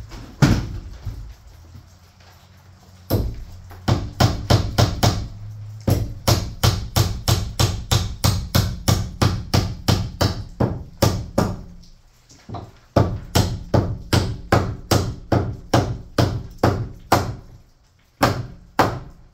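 Hammer nailing into overhead wooden framing: quick runs of sharp blows, about three a second, broken by short pauses, over a low steady hum.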